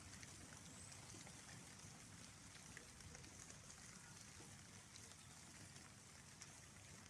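Faint, steady rain falling, with scattered small drop ticks.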